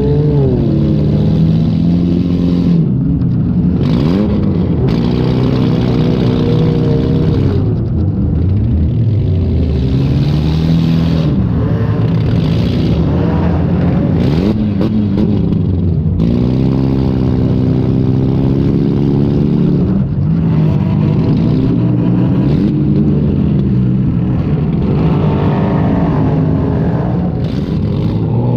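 Demolition derby car's engine heard from on board, revving up and falling back again and again as the car accelerates and backs off.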